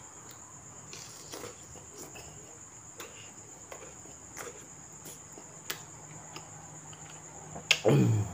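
Crickets chirping in a steady, unbroken high trill, with scattered soft clicks of mouth sounds as mango slices are chewed. Near the end comes a short, loud vocal sound that falls in pitch.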